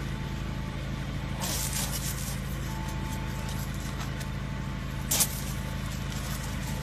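A vehicle engine idling steadily, with two short bursts of hiss, about a second and a half in and again about five seconds in.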